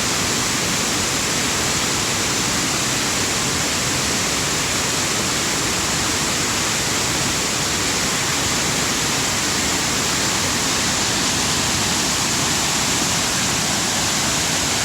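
Steady, loud rush of a waterfall, water pouring over rocks in a continuous even roar.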